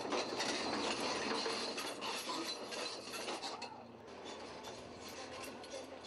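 Tracked bulldozer on the move, its steel tracks and running gear clanking and grinding. The sound gets quieter about three and a half seconds in.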